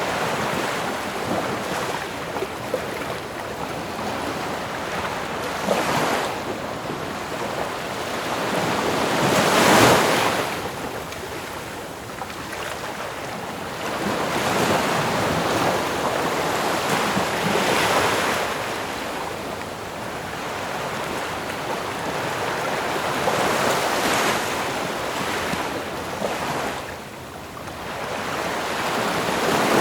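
Ocean surf: waves washing in and breaking in slow swells every few seconds, the strongest about ten seconds in.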